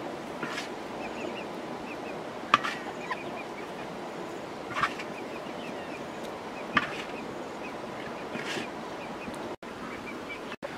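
Spatula scraping fried rice in a large wok, with three sharp knocks about two seconds apart, while chickens call around it.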